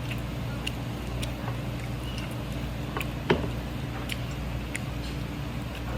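Someone eating raw squid sashimi: soft chewing and scattered small clicks of utensils, one louder about three seconds in, over a steady low hum.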